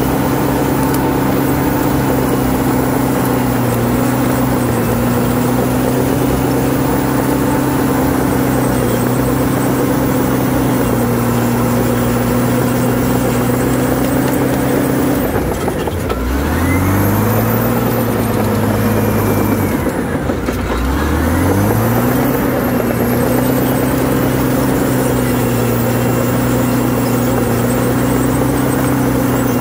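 A CAT D7R bulldozer's diesel engine running steadily at working speed. About halfway through, its pitch drops sharply, holds lower for a few seconds, dips again and then climbs back to its steady speed.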